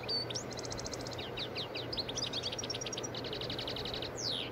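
Small birds chirping and trilling: many quick, high chirps that sweep up and down, and two fast runs of repeated notes, over a steady low hum and hiss.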